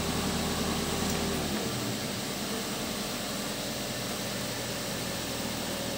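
Steady hissing background noise with a low hum, like a fan running; the hum drops away about one and a half seconds in.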